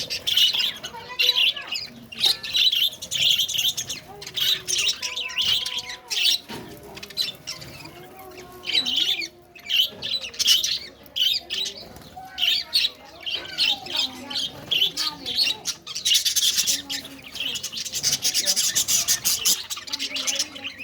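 Many birds chirping and squawking together in a dense, constant chatter of quick high calls, growing fuller and louder near the end.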